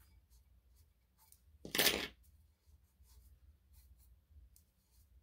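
Quiet handling sounds of vinyl decal work on a tumbler: a few faint clicks, with one brief rustling scrape about two seconds in.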